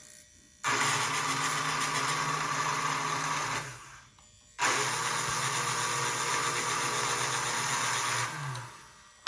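Lionel #182 magnetic crane's electric motor and gears whirring, run twice for about three seconds each from the push-button controller, each run starting abruptly and winding down at the end.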